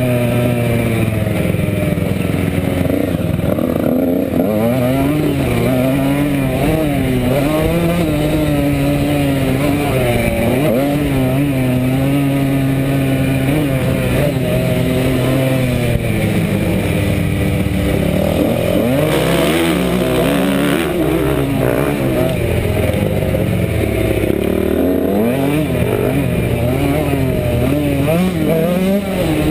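Honda motocross bike's engine, heard up close from the bike, revving hard with its pitch rising and falling over and over as the throttle is worked through the track's turns and jumps.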